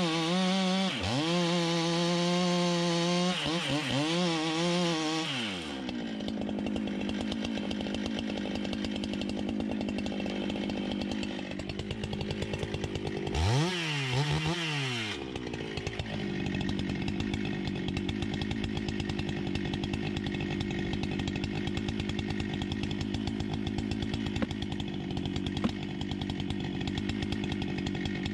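Large two-stroke chainsaw running at full throttle for the first five or six seconds, its pitch dipping and recovering as it bites into wood. It then drops to idle, is revved briefly about halfway through, and idles steadily again.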